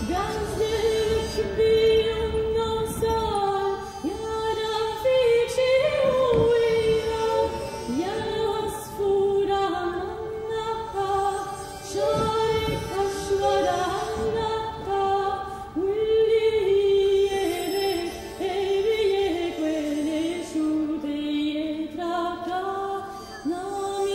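Music with a singing voice holding long, wavering notes over an accompaniment.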